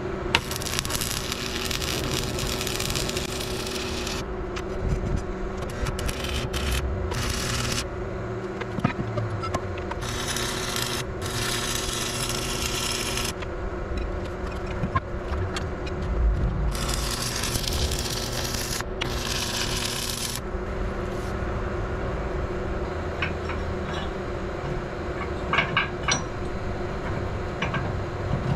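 Stick welding arc crackling and sizzling in several bursts of a few seconds each, with short pauses between runs. A steady hum carries on underneath, and a few sharp clicks come near the end.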